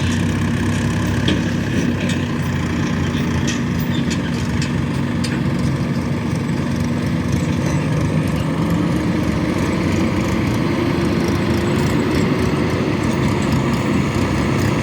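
Heavy diesel engines of tractors and a backhoe loader running steadily, the engine note shifting up a little about eight seconds in.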